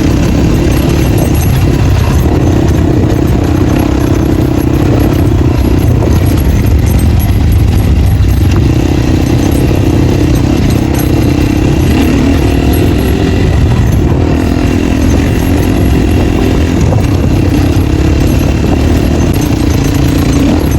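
Dirt bike engine running loud through an open exhaust with its dB killer removed, pitch rising and falling slightly as the throttle changes while riding off-road.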